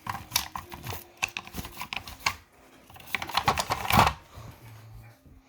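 Clicks, taps and rattles of a pneumatic air tool being handled as it is cleaned and oiled, with one louder rush of noise about four seconds in.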